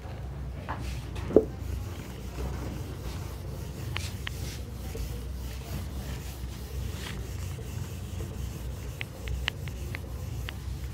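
A felt duster being wiped across a whiteboard, with one sharp knock about a second in and a few light ticks near the end, over a steady low hum.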